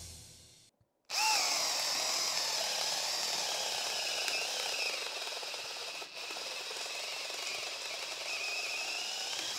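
Bosch Profactor GSB18V-1330C brushless cordless drill boring a long auger bit through stacked pine 2x4s, its motor whining under load with a slightly wavering pitch. It starts about a second in and dips briefly about six seconds in.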